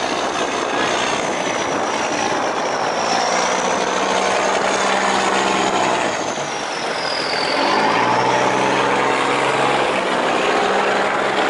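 Diesel engines of cargo boats and a barge passing close by under power, a steady drone with a high whine that dips and rises; the engine note changes about six to eight seconds in as another boat comes past.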